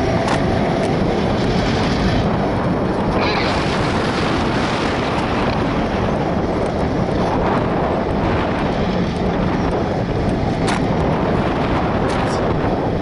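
Diesel-electric locomotives, GATX-leased GMTX 2284 and a CN unit, running with a steady low rumble, with wind buffeting the microphone.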